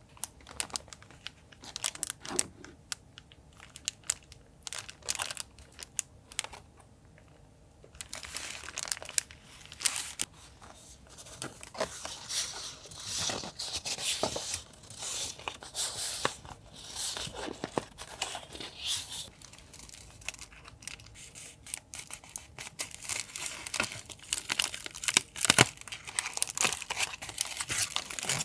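Paper and packaging being handled close to the microphone: a few light taps and clicks for the first several seconds, then continuous crinkling and rustling with tearing.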